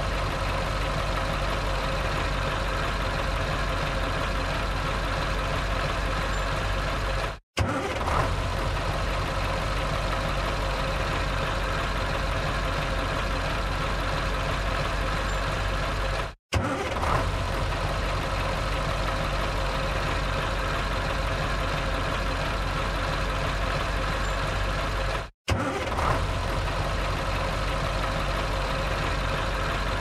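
Truck engine running steadily at idle. Three times, about every nine seconds, the sound cuts out for a fraction of a second and comes straight back with a short sharp burst, as a looped engine-start recording.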